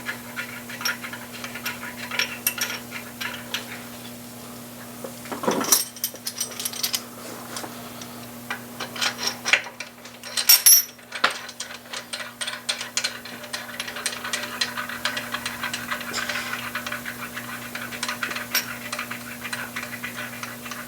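Metal hand tools and bolts clinking and tapping against the engine block and main bearing caps in scattered bursts, while the crankshaft main caps are bolted down. A steady low hum runs underneath.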